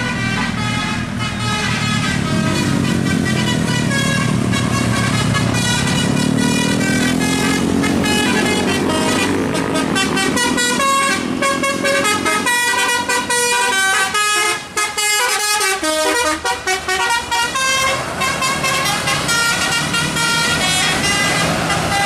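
Tour bus's multi-tone "telolet" horn playing a tune of stepped notes, over the bus's engine running low underneath in the first half. Around the middle the notes turn short and choppy, with brief gaps between them.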